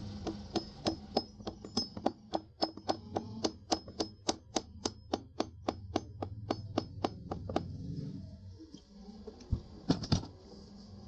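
Mini sewing machine running slowly, its mechanism clicking evenly about four times a second over a low motor hum. The clicking stops and two knocks follow near the end.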